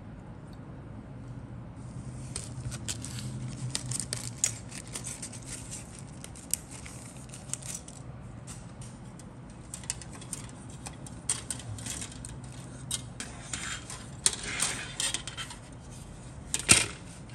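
Light clicking and clatter of grey injection-moulded plastic model-kit sprues being handled, with a sharper knock near the end as a sprue is set down on the cutting mat.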